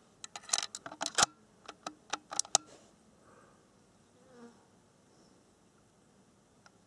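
A quick run of about a dozen sharp clicks and knocks over the first two and a half seconds, with one heavier knock near the middle: shooting gear being handled close to the microphone while the next shot is set up.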